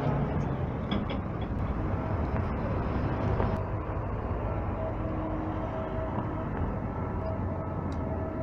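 Outdoor urban background of steady traffic rumble. The background changes about three and a half seconds in, and faint short tones sound on and off after that.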